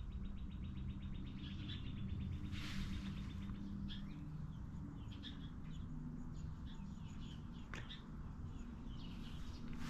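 Birds chirping, with a fast, even ticking trill in the first two and a half seconds and scattered short chirps after it, over a faint low steady hum.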